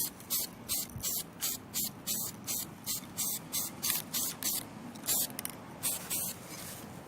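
Aerosol spray can (rattle can) hissing in about seventeen short bursts, roughly three a second, with a short gap before the last few: undercoat primer going on as a first layer in quick passes.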